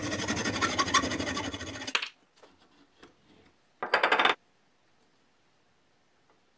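Hand file rasping in quick strokes on a small metal piece clamped in a bench vise for about two seconds, then one more short scrape about four seconds in.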